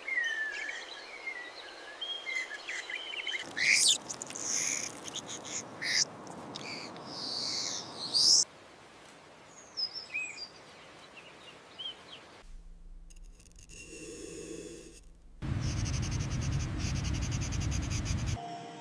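Birds chirping and calling over a steady outdoor background, with several abrupt changes of ambient sound. Near the end, a louder low noise with a fast flutter lasts about three seconds and stops suddenly.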